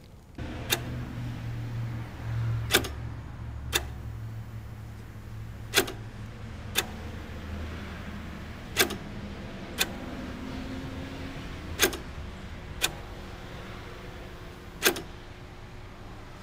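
Electronics inside a cellphone-actuated 50-cal ammo can: a small electric motor hums low, fading out after about twelve seconds. About ten sharp clicks come mostly in pairs a second apart, roughly every three seconds.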